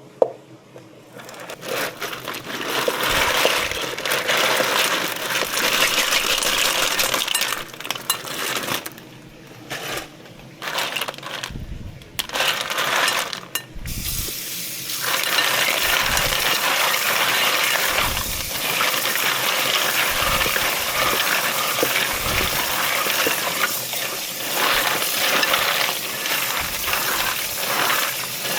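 Clam shells clinking and rattling against each other in water as they are rinsed and scrubbed, a dense clatter with a few short pauses and occasional dull knocks.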